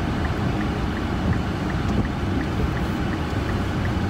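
Steady car cabin noise: a low rumble and hiss from the running car, with a faint, regular ticking about three times a second.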